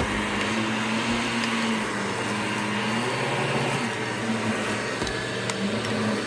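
Vacuum cleaner running on a floor, its motor hum wavering up and down in pitch as the airflow changes, with a few faint ticks of debris being sucked up.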